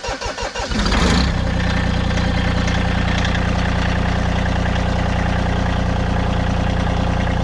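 Massey Ferguson tractor's diesel engine, cold-started after its glow plugs have warmed: it cranks briefly, catches about a second in, and settles into a steady idle.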